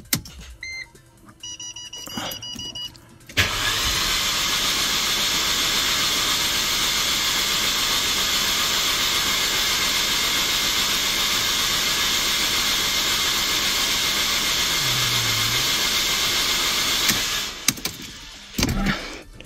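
A few electronic beeps from the instrument cluster as the key is turned, then the Mercedes M271 engine is cranked by its starter for about fourteen seconds without firing, since its spark plugs are out. The cranking is a steady, even whirr that stops abruptly, followed by a couple of knocks near the end.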